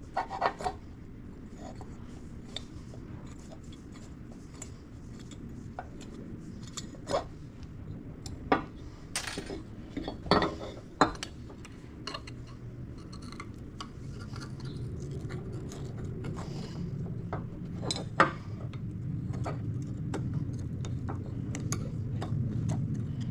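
Metal tools and parts clinking and knocking at a workbench, in scattered sharp hits, over a low hum that grows louder about halfway through.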